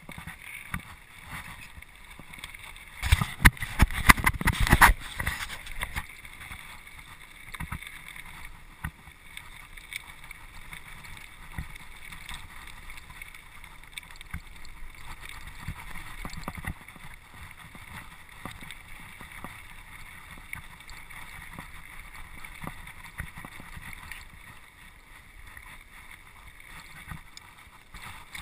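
Mountain bike rattling and knocking as it rolls over a rough, stony gravel track, with tyre and rolling noise throughout. A louder cluster of clattering knocks comes about three to five seconds in.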